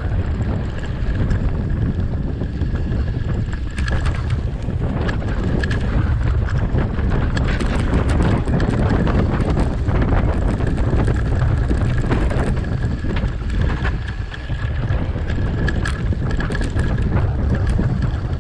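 Wind rushing over the microphone of a mountain bike's camera on a fast dirt-trail descent, with the tyres rumbling over dirt and stones and the bike rattling and clicking on the rough ground.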